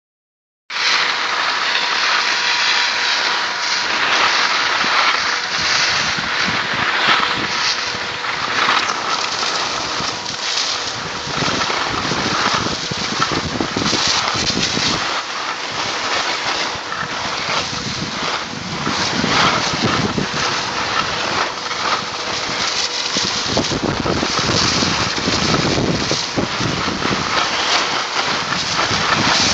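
Steady rushing of wind on the microphone of a camera carried by a skier moving down the slope, mixed with the hiss and scrape of skis sliding over hard-packed snow.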